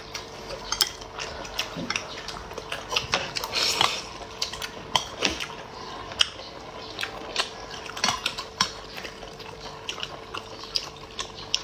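A plastic spoon and chopsticks clicking and scraping against a plastic hot-pot bowl while food is picked out: scattered, irregular light clicks, over a faint steady hum.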